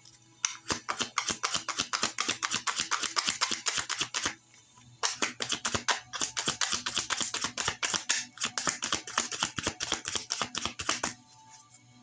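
A tarot deck being shuffled by hand: rapid crisp clicks of cards flicking against each other, in two bouts with a short pause a little after four seconds in.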